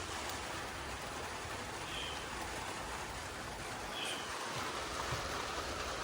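Steady hiss of rain, with a faint short high chirp about every two seconds.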